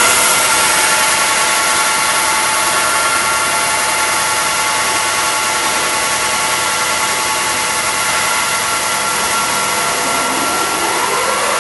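Cincinnati 550-20 VersiPower milling machine, with its 50 HP main drive, running steadily just after start-up, a steady gear whine of several tones over the motor noise. About ten seconds in, a second rising whine begins as something else on the machine speeds up.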